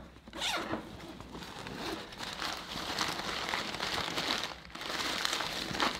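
Crumpled newspaper crinkling and rustling as hands rummage through it and pull it out of a canvas bag pocket, in irregular crackles with a short lull partway through.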